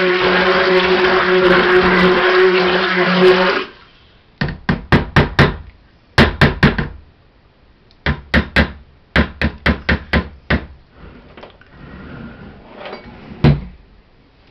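Handheld stick blender running steadily in a bucket of soap batter, then switching off about three and a half seconds in. After it, quick clusters of sharp knocks as the blender head is rapped against the plastic bucket, with one last knock near the end.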